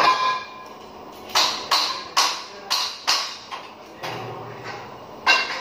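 Sharp metal-on-metal clinks, about eight in all, irregularly spaced and bunched in the middle, some leaving a brief metallic ring, from steel being struck or knocked about during welding work.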